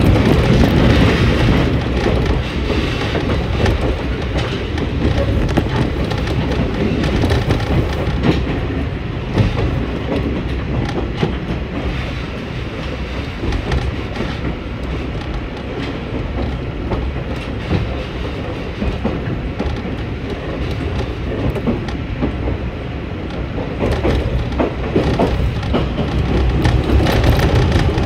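Diesel railcar running on the JR Tsuyama Line, heard from inside the carriage: a steady rumble of engine and wheels on the rails, with scattered clicks from the track. It eases off somewhat in the middle and grows louder again near the end.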